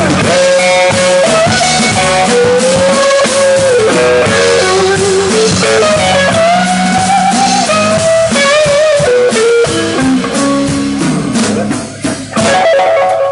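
Live blues-rock trio playing: an electric guitar lead with notes that bend and slide, over bass guitar and drum kit. The band drops back for a moment near the end, then comes back in.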